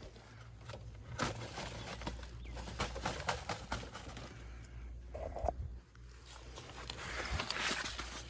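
Scattered light clicks and rustles of hands handling wiring and gear, over a faint steady low hum.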